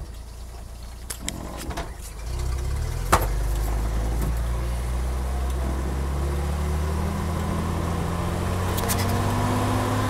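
Chrysler 251 flathead six of a 1951 M37CDN army truck, heard from inside the cab. For about two seconds it is quieter with a few light clicks, as during a gear change. Then the engine comes on under load, with a sharp knock a second later, and pulls with its pitch rising slowly as the truck gathers speed.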